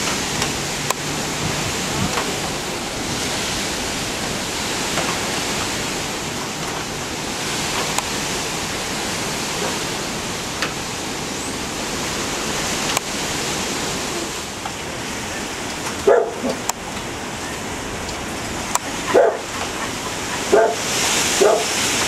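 Steady rushing noise of hurricane wind and rain. About two-thirds of the way in, a dog starts barking, several short barks over the last few seconds.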